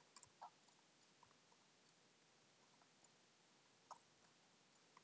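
Near silence with a few faint, scattered clicks from a computer keyboard and mouse.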